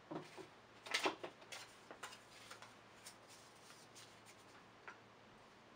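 Faint clicks and light rustling of paint supplies being handled as blue paint is taken up. A few sharp clicks come about a second in, then smaller scattered ticks, with one more near the end.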